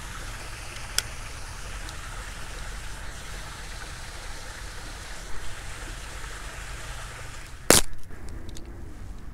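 Steady outdoor background noise, with one sharp click about a second in and a louder knock a second or two before the end.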